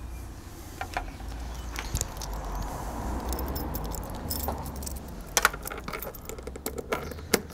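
Light clinks and rattles of small hard objects handled in the hands, with scattered short clicks and a couple of sharper clicks near the end.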